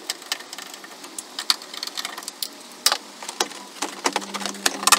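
Irregular plastic clicks, knocks and rattles as the Mk6 Ford Fiesta's headlight unit is worked loose from its fiddly fixings by hand, with a denser run of clicks near the end.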